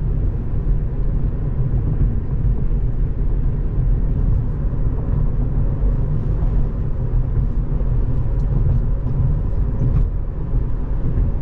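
Road and tyre noise inside the cabin of a Tesla Model 3 on the move: a steady low rumble with no engine note, as the car is electric.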